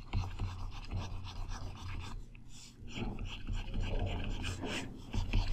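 Quiet pause: a steady low hum with faint breathing close to the microphone and light scratching of a pen stylus on a drawing tablet.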